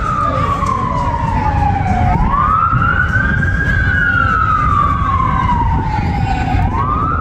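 Emergency vehicle siren wailing: its pitch slides slowly down, then sweeps quickly back up about two seconds in and again near the end. A steady low rumble runs beneath it.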